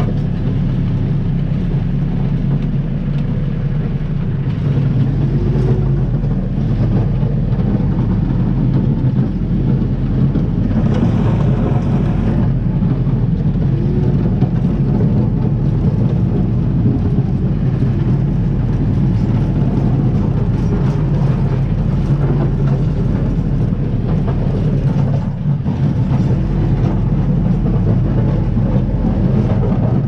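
Compact tractor's diesel engine running steadily under way, a little louder from about five seconds in, with a brief rushing noise about eleven seconds in.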